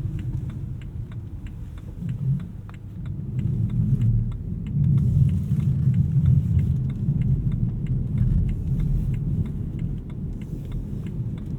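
BMW E92 M3's V8 engine running at low revs as the car creeps over snow, a low rumble that swells for a few seconds in the middle, with a scattering of small clicks over it.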